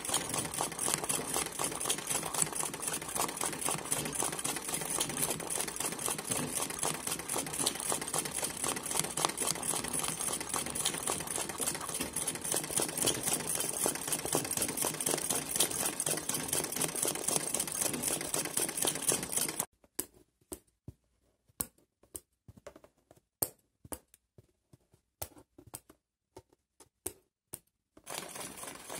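Straight-stitch domestic sewing machine running fast for free-motion embroidery, a rapid even chatter of stitches. About two-thirds of the way through it stops, leaving only scattered clicks, and it starts stitching again near the end.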